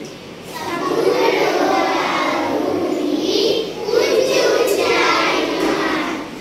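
A class of young children chanting a poem together in unison, the group voice rising and falling in long drawn-out phrases.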